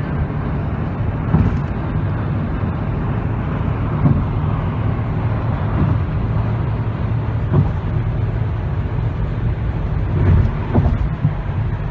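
Road noise inside a moving car at highway speed: a steady low rumble of tyres and engine with a hiss of wind and road over it.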